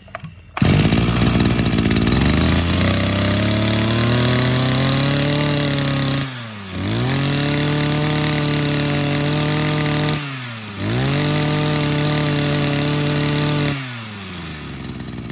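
Small two-stroke brush cutter engine pull-started, catching at once about half a second in. It speeds up gradually over the first few seconds, then is held at high revs, dropping back briefly twice, and falls back toward idle near the end.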